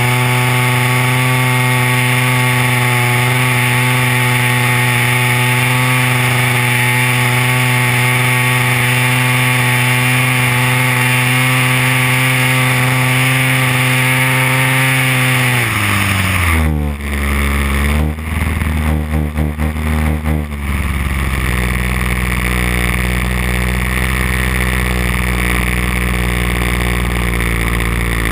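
DLE 30cc single-cylinder two-stroke gas engine of an RC Slipstream DHC-2 Beaver, running steadily at flying throttle, heard close from a camera on the airframe. About sixteen seconds in it is throttled back: the pitch drops, the sound goes uneven for a few seconds, then settles into a steady low idle as the plane comes down over the ice.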